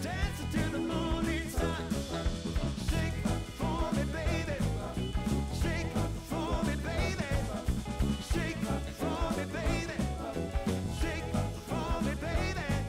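Background music: a song with a singing voice over a band.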